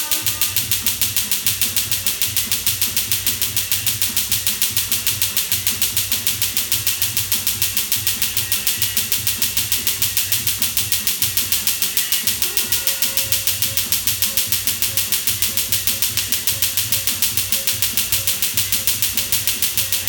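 Tattoo-removal laser firing pulse after pulse into the skin: a rapid, evenly spaced snapping, several snaps a second, over a low steady hum.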